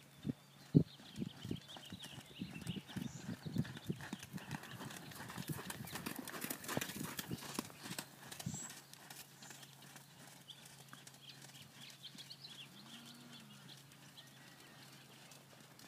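Horse's hooves thudding on the sand footing of a riding arena as it is ridden at a canter. The hoofbeats are loud at first and fade to faint after about eight and a half seconds.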